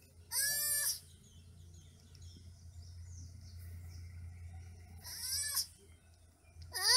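A baby two-toed sloth calling three times with high-pitched, squeaky cries, each well under a second long; the last, near the end, is the loudest.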